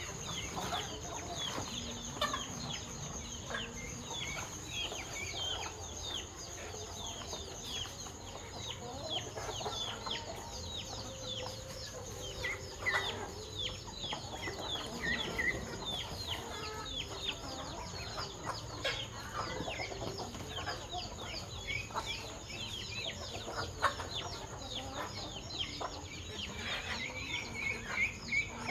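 A flock of chickens calling at feeding time: clucking, with a dense, continuous run of quick high peeps. A steady high-pitched tone runs underneath.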